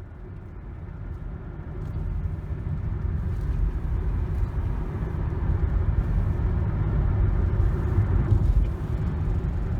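A car driving, its engine and road noise a steady low rumble that fades in and grows louder over the first couple of seconds.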